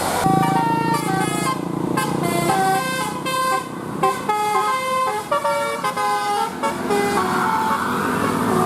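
Bus 'telolet' musical air horn (Basuri) playing a quick tune of short, stepping notes, starting a moment in, over the hum of the bus.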